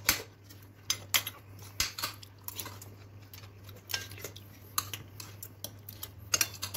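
Spoons and forks clinking and scraping against ceramic bowls and plates as people eat, in short irregular clicks throughout.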